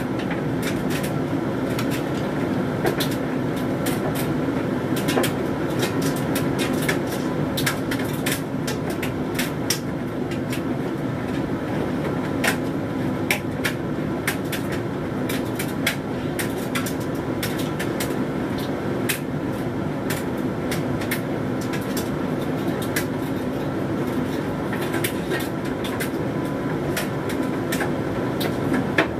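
Hoover Dynamic Mega 10kg condenser tumble dryer running a load of synthetics: a steady drum-and-fan hum with frequent irregular clicks and taps as the load tumbles in the drum.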